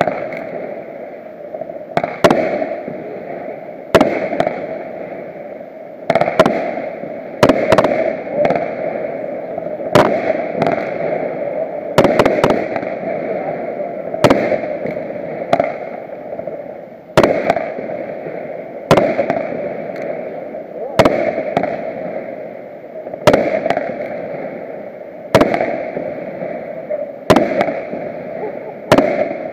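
A fireworks display: aerial shells bursting with sharp bangs roughly every one to two seconds, each bang trailing off briefly, over a steady background noise.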